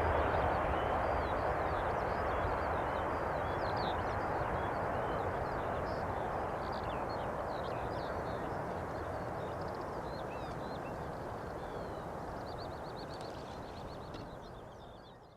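Jet noise from a departing Boeing 747-400 fading slowly as the four-engine airliner climbs away after takeoff. Small birds chirp throughout, with a quick trill near the end.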